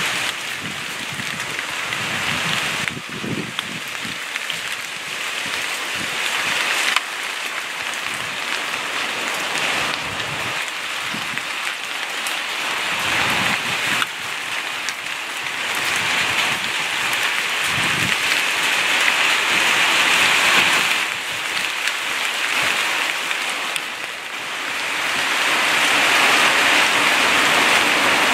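Steady rain falling on shrubs and brick paving, an even hiss, growing louder near the end. A few brief low thumps come through along the way.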